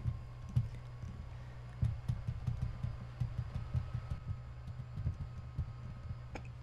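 Stylus writing on a pen tablet: faint, irregular low taps and scrapes as the strokes are made, over a steady low electrical hum.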